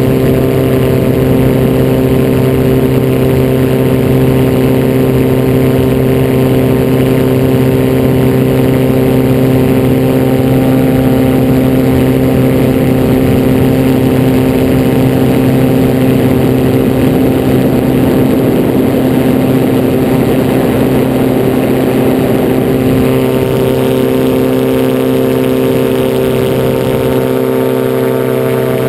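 Butterfly Monarch gyroplane in flight: its engine and pusher propeller running at a steady pitch, heard close up from the airframe. It becomes a little quieter about two-thirds of the way through.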